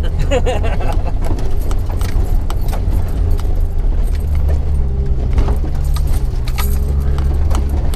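Jeep engine running steadily at low revs under a constant run of clinking rattles as the vehicle jolts along a rough dirt trail.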